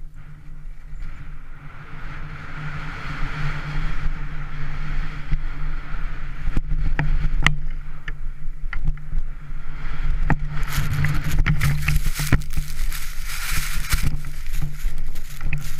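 Wind rumbling on the microphone and skis hissing over snow during a fast downhill run, with a few sharp clicks about seven seconds in. From about ten seconds in, a much louder rush of sliding avalanche snow, full of crackling and scraping as the moving snow engulfs the skier and strikes the camera.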